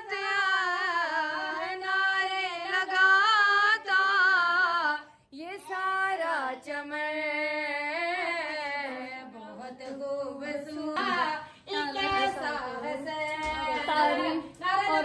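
A woman singing an Urdu devotional song (manqabat) in praise of Imam Hassan, holding long, wavering, ornamented notes. The singing breaks off briefly about five seconds in and then carries on.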